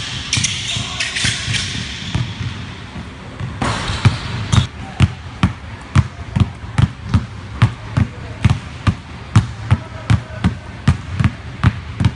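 Sneakers squeaking and scuffing on a hardwood gym floor during cone footwork. From about four seconds in, two basketballs are dribbled on the hardwood in a steady rhythm of sharp bounces, about three a second.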